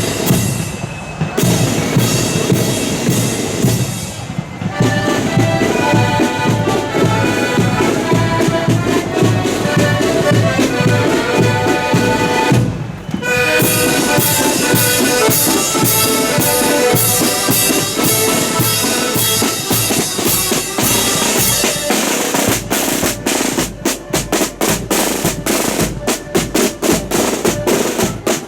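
Marching accordion band playing a tune over snare and bass drums. About three-quarters of the way through, the accordion melody drops out and only the drums keep beating.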